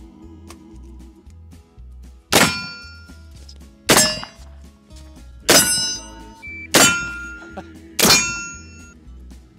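Five shots from a percussion-cap muzzle-loading rifle, about one and a half seconds apart, each followed by a short metallic ring. Background music with a steady beat runs underneath.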